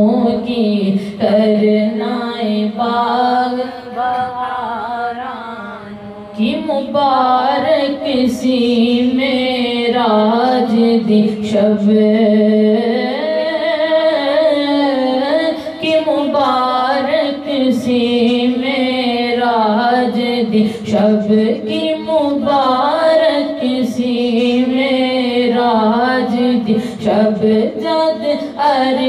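A female voice singing a Punjabi naat in praise of the Prophet, in drawn-out phrases with wavering, ornamented pitch. The singing drops lower about four to six seconds in, then comes back strongly.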